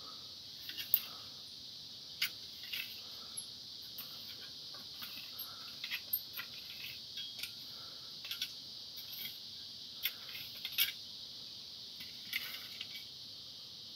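Garden rake's tines scraping and clicking on dry, stony ground in irregular strokes, the sharpest clicks about a second in and again near the eleventh second. A steady high insect drone runs underneath.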